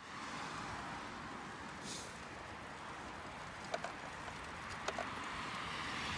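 Steady rushing noise of a bicycle rolling along an asphalt road, with two short double clicks about four and five seconds in.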